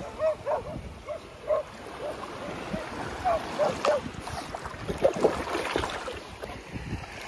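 Golden retriever puppy whining in a string of short, high whimpers, most of them in the first four seconds, with splashing as it wades through shallow water about five seconds in.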